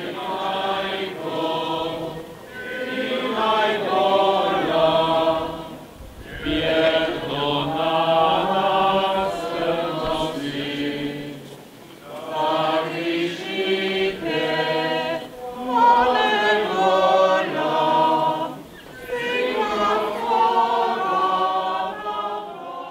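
A crowd of pilgrims singing a hymn together in unison, line by line, with a short breath between phrases.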